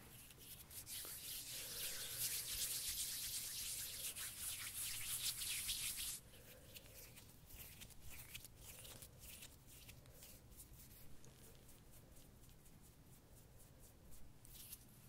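Hands rubbing close against the microphone in an ASMR face massage: a dense, scratchy rubbing for about the first six seconds that stops suddenly, then lighter separate strokes.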